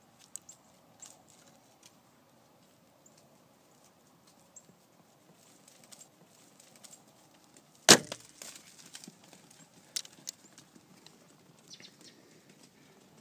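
A single loud gunshot about eight seconds in, fired at a buck deer, with a short ringing tail. Light clicks and rustles in dry leaves come before and after it.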